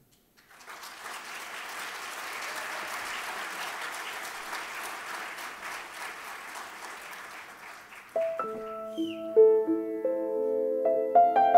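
Audience applauding, the clapping dying away about eight seconds in; a piano then begins its introduction with slow notes that ring on and overlap.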